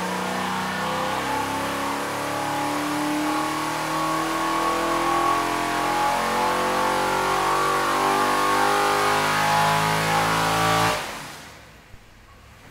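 Carbureted 401-cubic-inch small-block Chevy stroker V8 running on an engine dyno. It holds a fairly steady note for about eleven seconds, then shuts off and dies away, with a single small click near the end.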